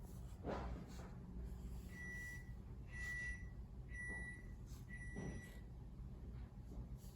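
Four evenly spaced electronic beeps, one steady tone each about half a second long, repeating about once a second, from an unseen beeper. A brief soft knock or rustle comes shortly before them.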